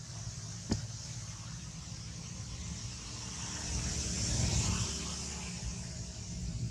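Steady outdoor background noise: a low rumble under a high hiss, growing louder about four seconds in, with a single sharp click just under a second in.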